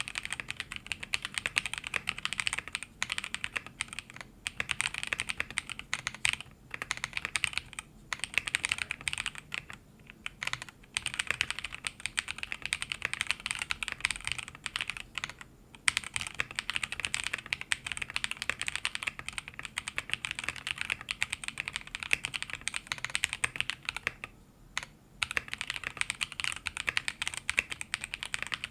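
Continuous fast typing on a plateless mechanical keyboard with stock Zaku linear switches (63.5 g two-stage springs, polycarbonate tops, nylon bottoms, long-pole stems) and PBT keycaps, giving a crisp clacky sound with snappy top-out. The typing pauses briefly a few times.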